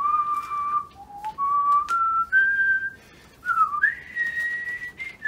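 A man whistling a tune: a run of held notes that climb step by step, with a quick dip and upward glide, ending on a long high note. A few light clicks sound between the notes.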